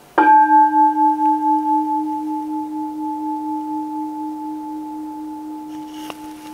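A bowl bell is struck once, marking the elevation of the host at the consecration. It rings on with a low tone and a higher one, pulsing slowly as it fades. There is a faint click near the end.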